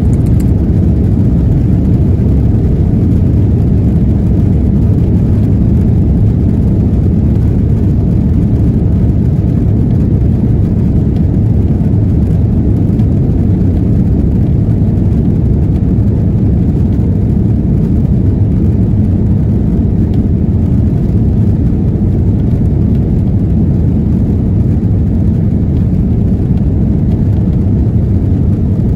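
Cabin noise inside an Airbus A330-200 moving along the runway: a steady, loud, low rumble of the jet engines and the rolling aircraft, heard through the fuselage.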